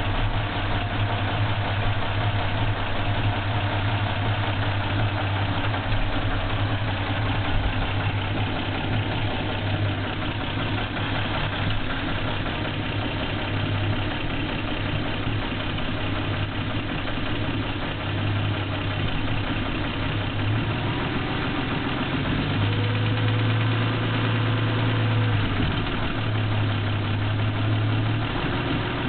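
Toyota 2F inline-six petrol engine idling steadily with a knock in it.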